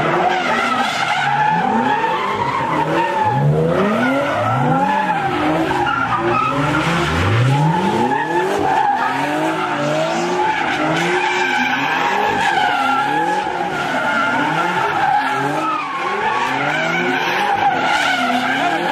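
Car spinning donuts: a steady tire squeal, with the engine revving up and down over and over, roughly once a second.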